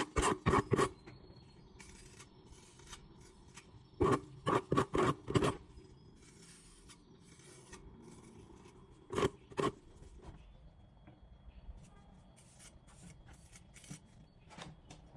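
Short rasping strokes of a tool scraping across a plastered wall: a quick run of about four, then five a few seconds later, then two more.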